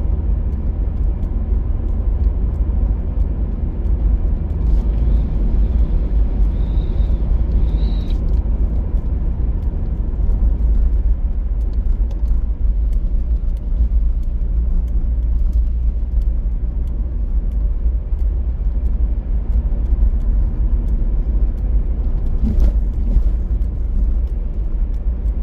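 Steady low road and engine rumble inside a moving car's cabin, with scattered faint ticks.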